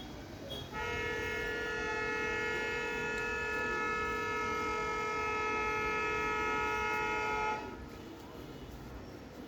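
A steady, horn-like tone of several pitches at once, starting about a second in, held without change for about seven seconds, and then cutting off suddenly.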